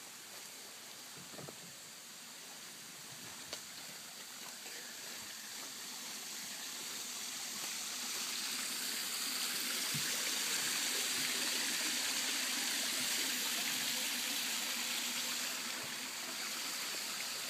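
Running water, a rain-fed stream flowing steadily, growing louder over the middle of the stretch as it comes closer and easing a little near the end.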